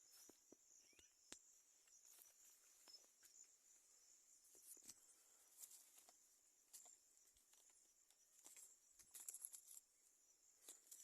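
Faint countryside ambience: a steady high-pitched insect chorus, with scattered small clicks and ticks, more of them near the end.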